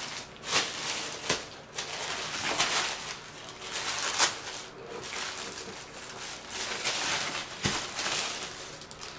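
Plastic poly mailer bag crinkling and rustling as hands pull it open, with irregular sharp crackles of the thin plastic.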